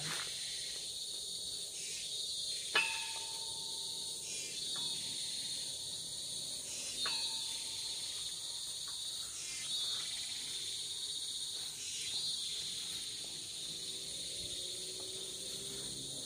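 A steady high-pitched chorus of forest insects, with a faint sweeping call repeating every two to three seconds. A sharp click comes about three seconds in, followed by a short steady whistle-like tone.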